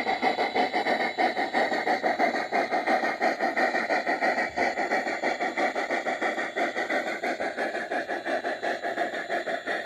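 G-scale model freight train rolling past on garden track, with a steady rapid clatter of its wheels on the rails.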